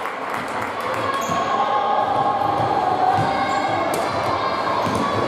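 Basketball game play in a large sports hall: the ball bouncing on the court amid players' movement, echoing in the hall.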